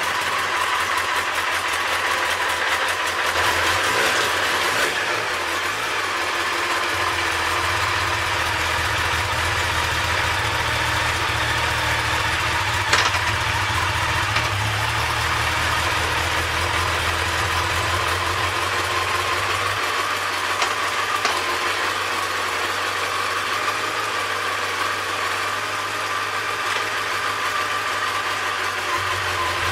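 2014 Kawasaki ZX-10R's inline-four engine idling steadily on fresh oil just after its first oil change, with one brief click about halfway through.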